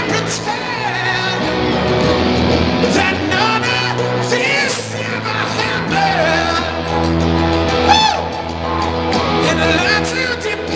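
Live rock band playing: electric guitars, bass and drums under a male lead vocal, with yells and whoops over the music.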